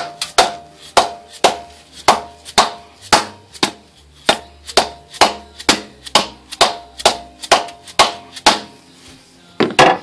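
Hammer tapping a stuck upper intake manifold on a GM 3.1/3.4 V6 to break it loose from its gasket. The blows come steadily at about two a second, each with a short metallic ring. After a brief pause near the end come two quick blows.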